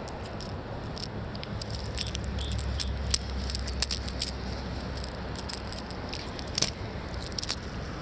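Steady rush of a flowing mountain river, with a scattered few sharp clicks and rattles close to the microphone.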